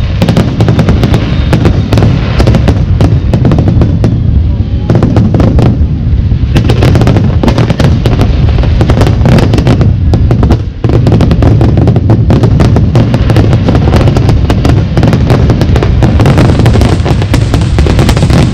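Fireworks going off in a dense, continuous barrage of shell bursts and crackles, loud throughout, with one brief break about eleven seconds in.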